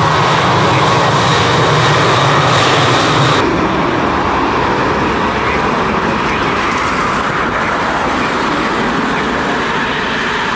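Boeing 737-800's CFM56-7B jet engines running, a steady loud roar with a whine on top. A bit over three seconds in the sound changes abruptly: the high whine drops away, leaving a steady wide rumble.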